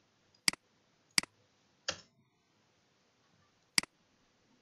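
Computer mouse button clicking: three sharp clicks, each with a softer release tick right behind it, and one duller, slightly longer click about two seconds in.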